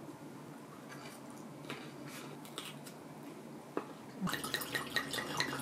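Chopsticks and tableware clicking and tapping at a table: a few light taps, then a quick run of sharp little clicks about four seconds in.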